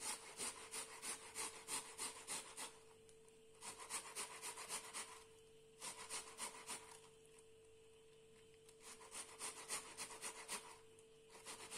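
Tomato halves being grated on the fine side of a box grater: quick, quiet rasping strokes in runs, broken by short pauses.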